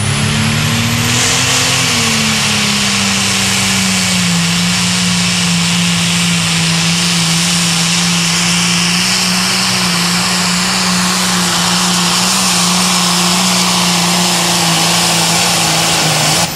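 Limited Pro Stock pulling tractor's turbocharged diesel engine running flat out under load on a pull, a strong steady engine note with a heavy high hiss over it. The pitch climbs briefly about a second in as it launches, then holds steady before cutting off suddenly.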